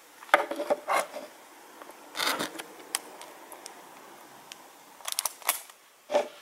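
Blood glucose testing gear being handled on a tabletop: four short bursts of small plastic clicks and rattles.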